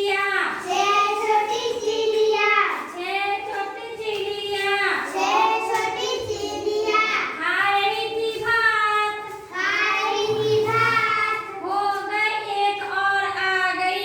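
A child singing a Hindi children's rhyme in a high voice, phrase after phrase with short breaks between.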